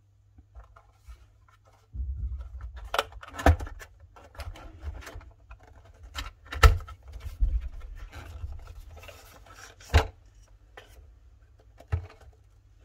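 A small cardboard box being opened by hand and an LED bulb slid out of it: cardboard rubbing and scraping, broken by several sharp knocks, the loudest a little past halfway, with a last tap near the end.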